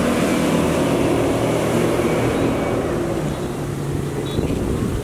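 An outboard-powered cabin runabout running at planing speed: a steady engine hum mixed with rushing water and spray from the hull.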